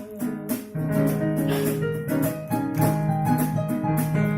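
Worship band playing an instrumental passage: keyboard chords over a bass line that comes in under a second in, with a steady rhythmic shaker or strummed guitar on top.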